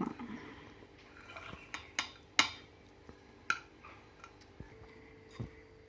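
Kitchen utensils clinking and tapping a few times at scattered moments, the loudest a little before halfway.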